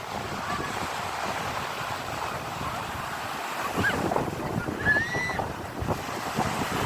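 Sea waves breaking and washing in, a steady rush that swells with louder splashes in the second half. A few short high calls sound over it, the clearest an arched call about five seconds in.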